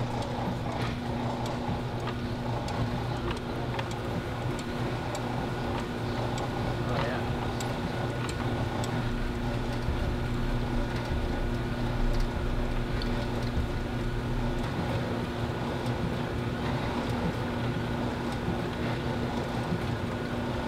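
Steady mechanical hum of the motor-driven 1965 Chevrolet Corvette cutaway working chassis, its cut-open engine and drivetrain turning over, with scattered faint ticks.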